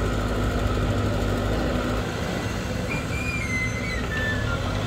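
Excavator's diesel engine running steadily, its hum shifting lower about two seconds in. A faint high wavering tone sounds briefly around the middle.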